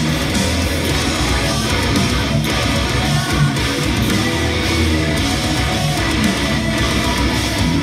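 Electric guitar, an Acacia Romulus played through a Line 6 Helix amp modeller, playing a heavy-metal riff steadily and without pause.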